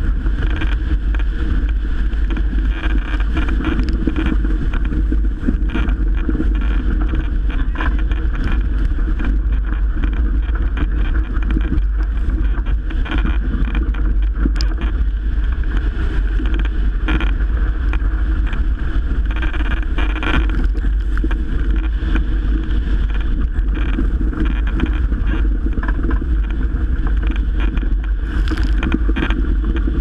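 Strong wind buffeting the microphone over a steady rush of water past the hull of a Melges 24 sailboat sailing fast through rough, windy water.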